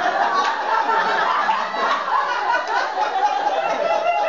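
Theatre audience laughing, a continuous mix of many chuckles and snickers.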